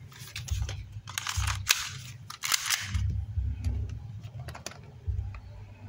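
Spring-powered airsoft pistol handled and fired with a 0.20 g BB over a chronograph: a series of sharp clicks and snaps, the sharpest about a second and a half in. This stock spring gives about 143 fps.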